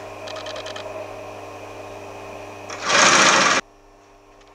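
Old Singer sewing machine stitching a shoe upper: its motor hums steadily with a quick run of needle ticks, then a loud burst of fast stitching about three seconds in, after which the machine stops.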